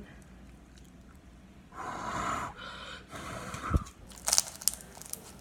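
Slime being handled: squished and stretched in the hands, with two rustling squelches, a soft thump, then a few sharp crackling pops.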